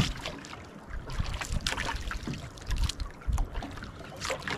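Wind gusting over the microphone and choppy waves slapping against the hull of a small outrigger boat, in uneven knocks and gusts, with one loud knock at the very start.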